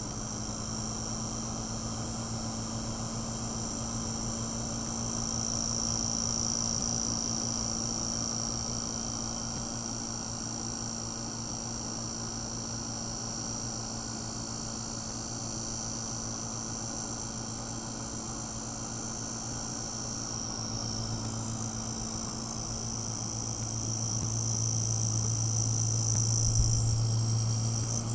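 Motor spinning a persistence-of-vision LED display at a steady speed: a steady low hum with a high whine above it, growing louder over the last few seconds.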